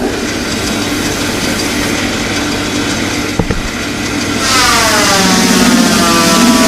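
Metal lathe running with a steady hum while turning the end of a 50mm pin. About four and a half seconds in the cut starts, adding a louder hiss and a whine that drops in pitch and then holds steady.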